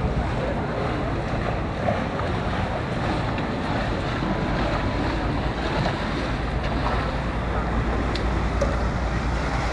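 Wind buffeting the microphone: a steady low rush of noise.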